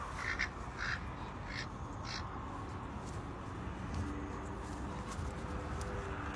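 About five short animal calls in the first two seconds, then only a steady background.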